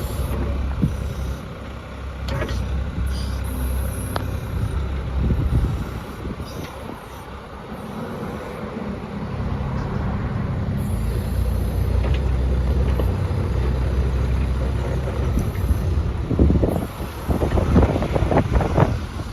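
Kubota diesel engine of a 4.5-ton AGT NT45 mini excavator running. Its sound drops about six seconds in and builds again a few seconds later. Near the end comes a run of knocks and clatter.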